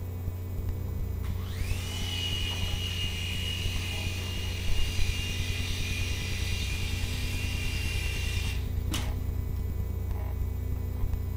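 Small battery-powered RC toy helicopter's electric motor and rotor spinning up with a rising whine about a second in, holding a steady high whine for about seven seconds, then cutting off. A single sharp knock follows, and near the end the motor spins up again with the same rising whine.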